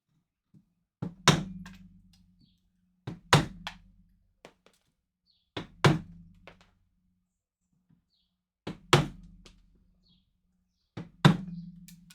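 Hard knocking blows struck by hand while carving material away from a figure. They come five times, about every two and a half seconds, each a light tap followed a moment later by a heavy blow, with a short low hum after each.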